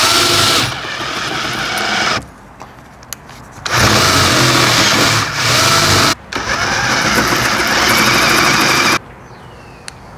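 Cordless Metabo drill spinning a 28 mm hole saw through a softwood garage door, in three runs of a few seconds each, stopping about nine seconds in.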